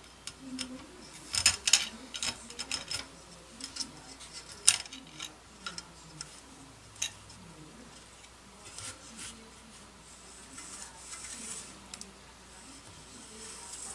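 Scattered light clicks and taps of a long sanding block being handled and pressed down along the trailing edge of a balsa model-airplane wing, most of them and the loudest in the first five seconds.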